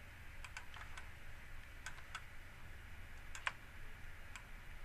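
Faint, scattered clicks of a computer mouse, about nine at irregular intervals, some in quick pairs, over a low steady room hum.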